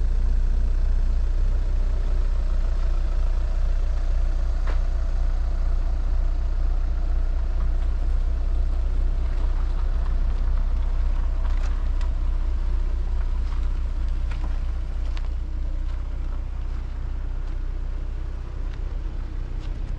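Steady low rumble of a vehicle driving along a road, engine and tyre noise, with a few faint ticks.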